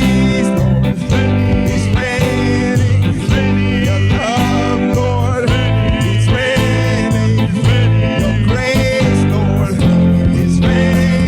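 Worship band music with guitar and sustained bass notes, and a singing voice carrying a melody.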